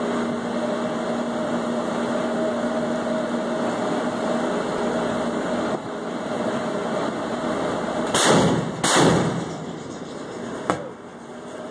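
Steady rushing noise with a low hum, then two loud gunfire blasts about two-thirds of a second apart, about eight seconds in, and a single sharp crack near the end.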